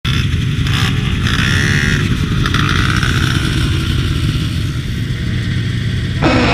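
Snowmobile engine running close by, with a few rising whines of engines revving, then music cuts in near the end.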